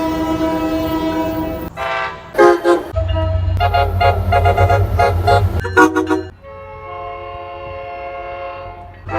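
Train horns sounding in a run of separate recordings cut back to back: a long held blast, a few short toots, a blast over a heavy low engine rumble, and a quieter long blast near the end, each a steady several-note horn.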